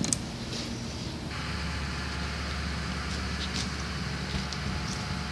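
A steady machine hum and whir that switches on abruptly about a second in and then holds even, with a few faint ticks over it.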